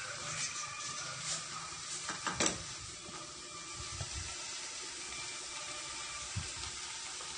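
Pot of stew simmering on a gas stove: a steady hiss, with one sharp knock about two and a half seconds in.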